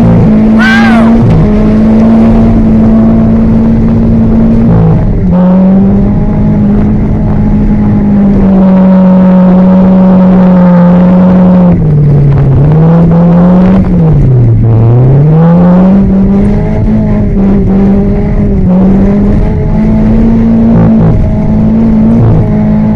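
A car engine run hard at high revs, its pitch held mostly steady with short drops as the throttle is lifted. The deepest drops come about twelve and fifteen seconds in, each dipping low and climbing straight back.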